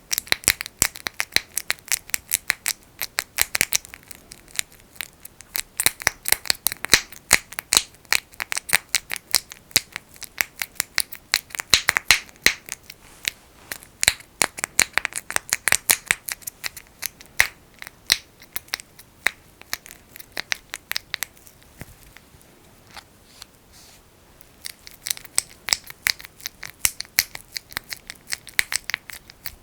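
Fingers squishing and rubbing thick Vaseline petroleum jelly: a fast, uneven run of sticky crackles and pops, easing off briefly about three-quarters of the way through.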